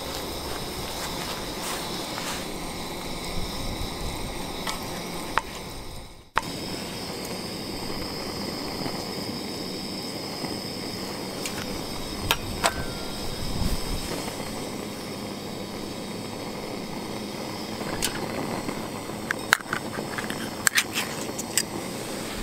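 Curry ingredients sizzling steadily in an iron frying pan on a camping gas stove, with a brief break about six seconds in. A few sharp knocks and scrapes of a utensil against the pan come in the middle and cluster toward the end.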